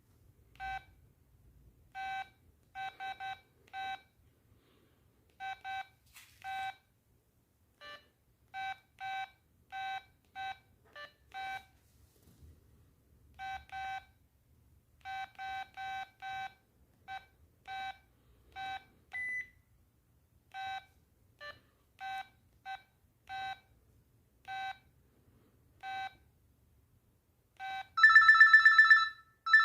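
LG MD5330 mobile phone's key-press beeps as its buttons are pressed to move through the menus: short beeps, all at nearly the same pitch, coming singly or in quick runs of two or three at uneven intervals. Near the end a much louder ringtone starts playing from the phone's speaker.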